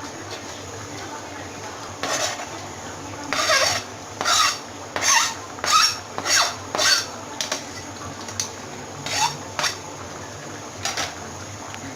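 A utensil scraping and stirring through a vegetable curry in a cooking pot: a run of short scrapes about every half second in the middle, then two more later on.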